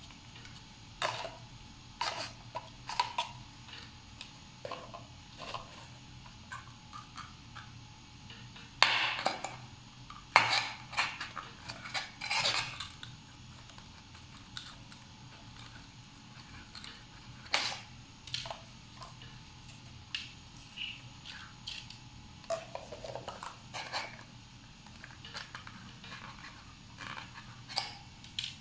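Paper cups being handled on a wooden table while thin skewers are pushed through them: irregular light taps, clicks and rustling scrapes, with a few louder ones in the middle.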